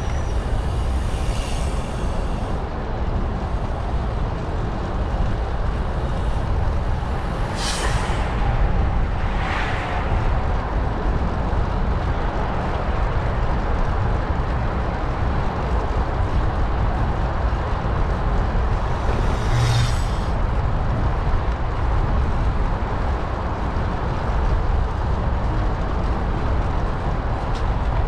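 Wind rumbling over the microphone while riding a bicycle, a steady low roar with a few brief hissing swooshes, the loudest about 8 and 20 seconds in.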